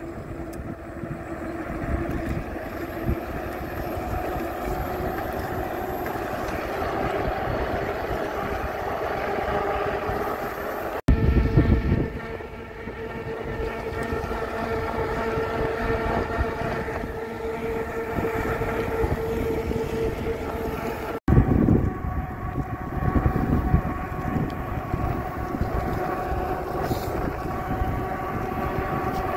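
Electric fat-tire bike (RadPower RadRover 6 Plus) riding on asphalt: a steady hum with a whine from the geared hub motor and the fat tires, over wind rushing on the phone's microphone. Gusts of low wind rumble come in after the sound cuts abruptly, about 11 and 21 seconds in.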